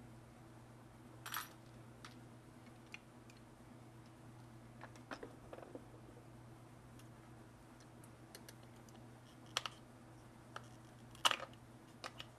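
Scattered light clicks and clinks of small metal hard-drive parts, screws and hand tools being handled on a plastic board, the loudest near the end, over a faint steady hum.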